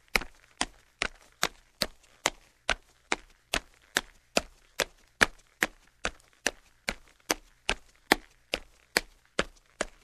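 Footsteps of a man walking at a steady, even pace, about two and a half sharp steps a second.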